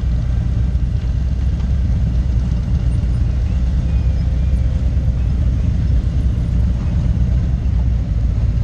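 Touring motorcycle engine running steadily at low speed, a constant low rumble heard from on the bike.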